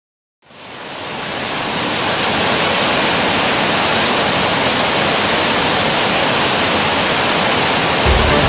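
Rushing white water of the Mölndal falls pouring over rocks: a steady, loud hiss that fades in about half a second in. Music comes in near the end.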